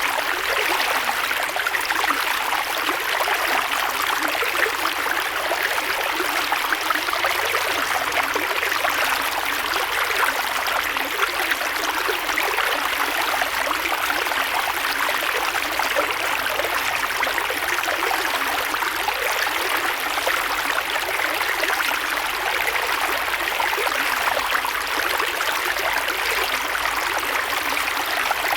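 Creek water flowing and burbling steadily, a continuous rushing with fine splashing detail.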